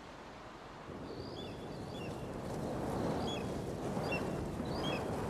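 A rushing, wind-like noise of air that swells about a second in and stays up, with short high bird chirps repeating over it.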